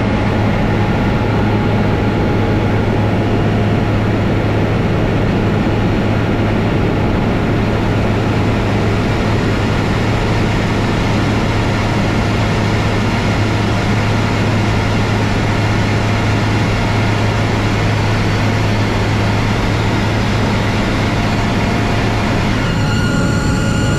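Single-engine propeller plane's engine and propeller giving a loud, steady drone with a strong low hum, heard from inside the cockpit in cruising flight. Music comes in about a second before the end.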